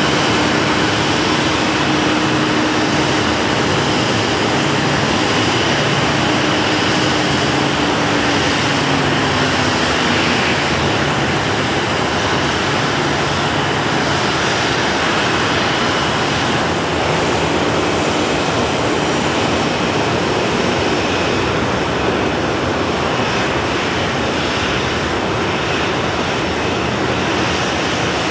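Boeing 737 twin CFM56 turbofan engines running at idle: a steady loud roar with a faint high whine. A lower hum drops in pitch about nine seconds in.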